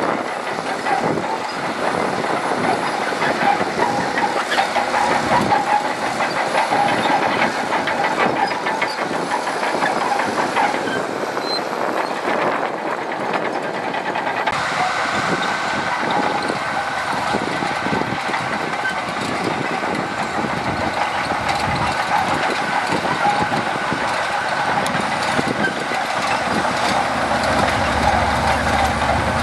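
Shantui DH17C2 crawler bulldozer working: its diesel engine running steadily under the continuous clanking and clatter of its steel tracks. The sound changes briefly about a third of the way in, then carries on as before.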